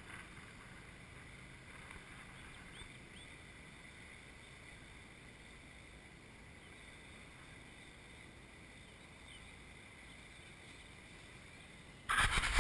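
Faint steady outdoor background with light wind on the microphone and a few faint short chirps, with no kart passing. Near the end a sudden loud rustling burst cuts in.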